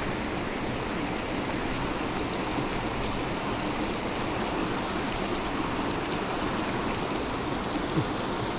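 Steady rush of water from a creek running high.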